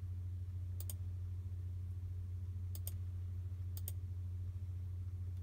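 Computer mouse button clicked three times, each click a quick press-and-release pair, while skipping through playback. A steady low hum runs underneath.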